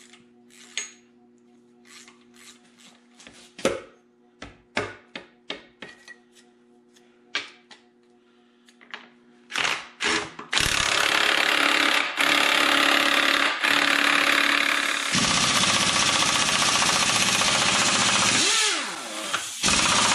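Metal tools clinking and knocking for about ten seconds, then an impact wrench hammering almost without a break on the seized crankshaft (harmonic balancer) bolt of a supercharged 3800 V6, with a few short pauses. The bolt does not break loose.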